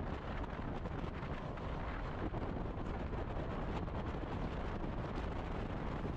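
Wind buffeting the microphone of a bike-mounted GoPro on a road bike riding at speed: a steady rush and rumble that does not let up.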